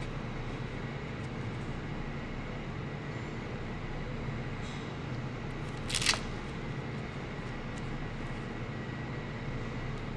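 Steady low mechanical hum of the kitchen with a thin high whine over it. About six seconds in comes a single sharp click.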